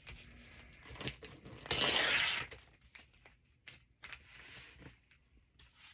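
Paper being handled: soft rustles and light taps, with one short rip of paper about two seconds in, the loudest sound.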